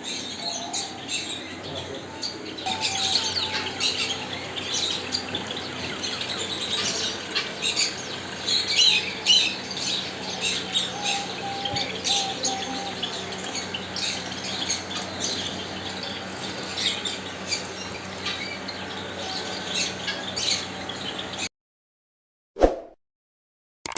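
A flock of small birds chirping and squawking, many short calls overlapping over a steady low hum. The sound cuts off suddenly near the end, and one brief sound follows.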